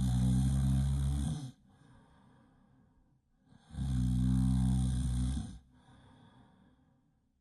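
Loud snoring: two long snores, each about a second and a half, about three and a half seconds apart. Each is followed by a much quieter breath.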